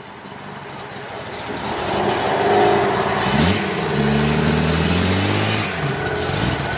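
Classic Datsun S30 Z-car's engine and exhaust pulling away at low speed, getting louder, with the note rising as it revs up about three seconds in. It then holds steady revs and dips briefly near the end.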